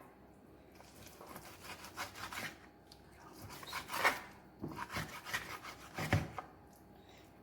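Kitchen knife cutting raw chicken breast into small cubes on a cutting board: quiet scraping of the blade with a few scattered soft knocks on the board, more of them in the second half.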